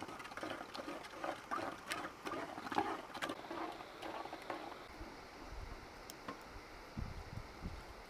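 Wooden spoon stirring liquid in a clay pot: irregular sloshing and scraping against the pot, busiest for the first four seconds or so, then dying down. A few dull thumps near the end.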